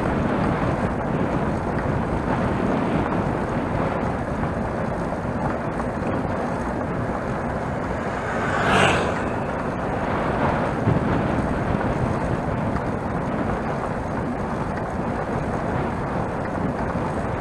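Wind rushing over an action camera's microphone while riding a bicycle, with steady tyre and road noise. A brief louder whoosh about halfway through.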